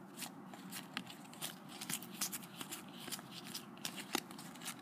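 Topps Match Attax trading cards handled and slid one past another, a faint run of irregular soft clicks and rustles of card stock.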